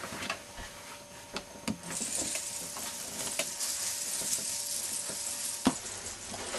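Scattered light knocks and clicks, then a few seconds of high rustling hiss as fabric brushes close by, with a sharp click near the end.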